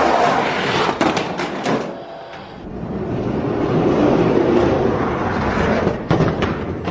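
Die-cast Hot Wheels monster trucks rolling down a sloped plastic track, a continuous rattling rumble that builds after a couple of seconds, with sharp clicks and knocks as the trucks bump along the track.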